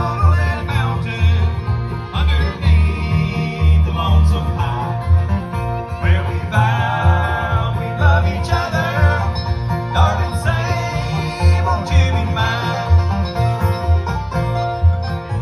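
Live acoustic string band playing bluegrass, with acoustic guitar and other plucked strings over a steady bass beat.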